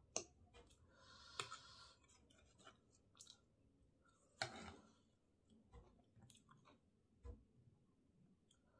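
Quiet close-miked chewing of a mouthful of vegetable chow mein noodles, broken by sharp clicks of a metal fork and spoon against the plate as the noodles are twirled; the loudest click comes about four and a half seconds in.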